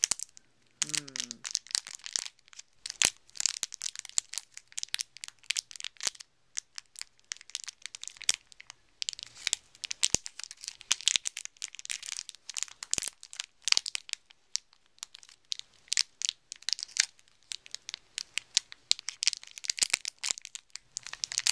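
Crinkling and crackling of a sealed blind-box wrapper being squeezed and turned in the hands to feel the figure inside, in quick irregular crackles throughout.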